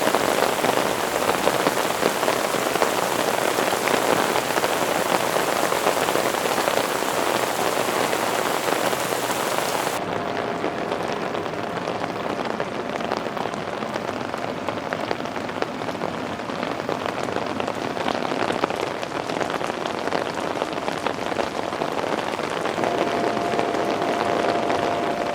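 Heavy rain falling steadily on a tent, a dense even patter. About ten seconds in the sound turns duller, losing its hiss.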